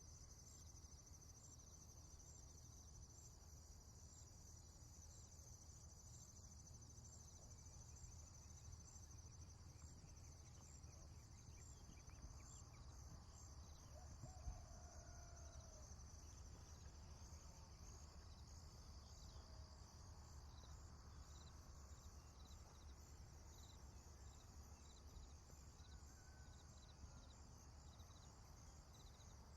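Faint prairie ambience: insects trilling in a steady, high-pitched pulsing chorus over a low rumble, with a few faint bird calls now and then and one soft thump about halfway through.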